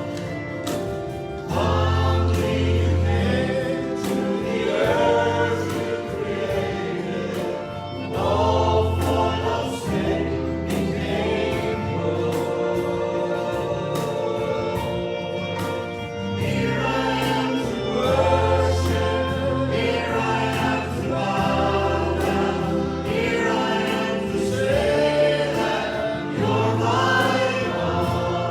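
Congregation singing a Christian worship song together with musical accompaniment, with a steady low bass line and a regular beat.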